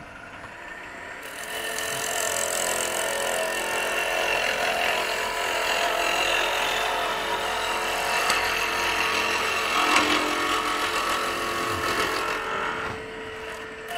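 A roughing gouge cutting a spindle blank spinning on a wood lathe: a steady rasping hiss of wood being peeled off, building about a second in and easing near the end, over the lathe's steady hum.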